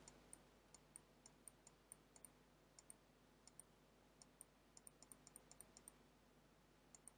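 Faint, irregular clicking of a computer mouse button as brush strokes are dabbed on one after another, often a quick press-and-release pair. The clicks come in runs, with a pause of about a second near the end.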